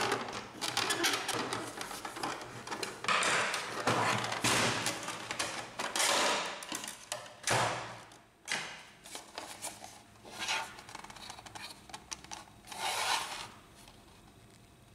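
Plastic side panel of an Epson XP-2100 inkjet printer being pried off its hooks with a small screwdriver and lifted away: irregular plastic clicks, snaps and scraping, stopping a little before the end.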